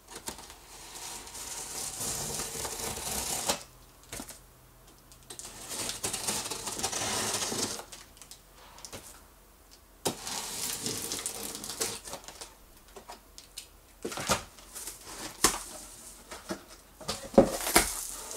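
Packing tape on a cardboard box being slit with a utility knife in three long scraping strokes of two to three seconds each. In the last few seconds come sharp cardboard knocks and rustles as the box flaps are pulled open, the loudest knock near the end.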